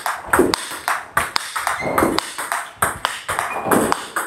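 Table tennis ball clicking off a Butterfly Harimoto Tomokazu Inner ALC blade and bouncing on the table in a steady topspin rally. There are sharp, evenly spaced ticks, about three a second.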